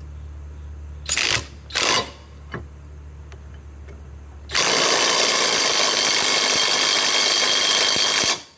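Flex 1451 mid-torque cordless impact wrench tightening a nut. Two short trigger bursts about a second in, then a few seconds later about four seconds of continuous impact hammering that stops abruptly. A steady low hum lies under the start and drops out when the hammering begins.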